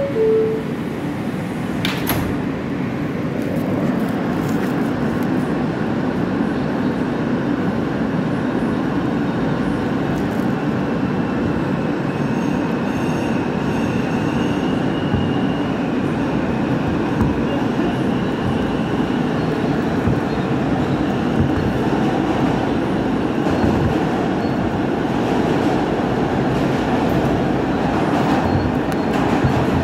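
New York City subway train leaving a station: a two-note falling door chime, the doors closing with a thud about two seconds in, then the train pulling out and running through the tunnel with steady wheel and track rumble. A thin high whine comes in around the middle.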